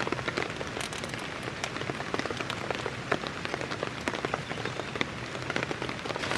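Steady rain falling on a surface, with many single drops ticking sharply through the hiss.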